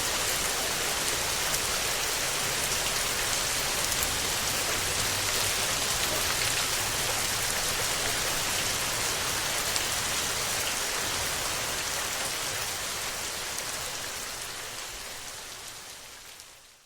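Steady rain falling, a dense even hiss with occasional sharper drop ticks, fading out over the last few seconds.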